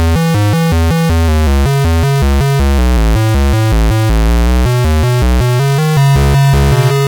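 Synthesized emergency-alert alarm tune: a loud, quick run of stepped synth notes over a heavy bass line. Near the end it settles onto a steadier low tone with a fast flutter.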